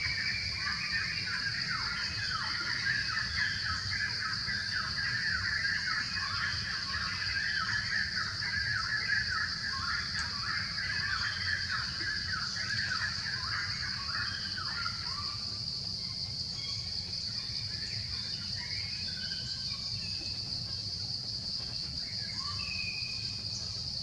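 Outdoor ambience: a steady, high insect drone with many small birds chirping, dense for the first half and sparser later, over a low rumble.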